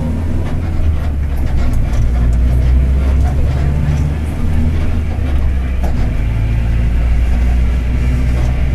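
Mercedes-Benz OF-1721 BlueTec 5 city bus running under way: a steady deep rumble from its diesel engine and driveline, the low drone of the cardan driveshaft, with a few light rattles.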